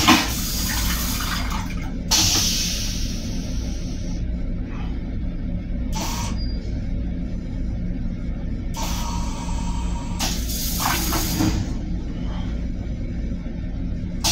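Railcar toilet flushing, with several loud hissing bursts of rinse water and air over a steady low rumble.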